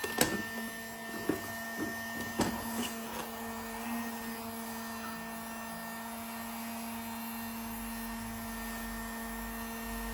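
A few light clicks and taps in the first three seconds, then a steady low hum from a small device.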